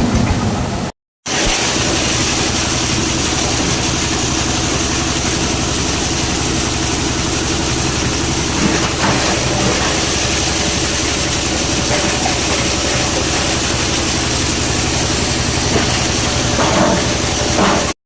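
Plastic shredder machine running steadily with a constant mechanical hum, after a short cut about a second in.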